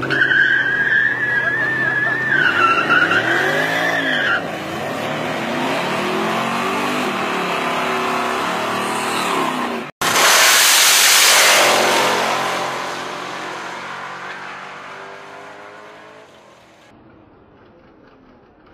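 Car tyres squealing for about four seconds while the engine revs up and down. Then drag cars run hard down the strip, and their sound fades steadily into the distance after a sudden cut about ten seconds in.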